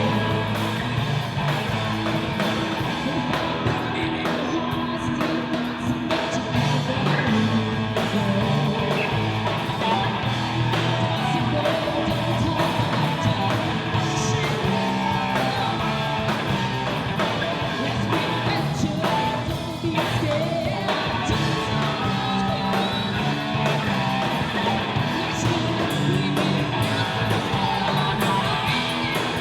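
Live band playing a rock song, with guitar and a singer's voice over it.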